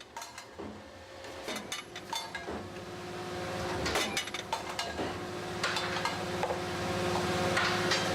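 Factory machinery running with a steady hum, with scattered metallic clinks and knocks, growing slowly louder.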